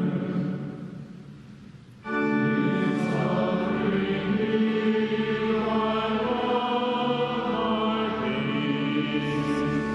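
A hymn sung by a choir with organ: a held chord dies away over the first two seconds, then the next line starts suddenly about two seconds in and carries on.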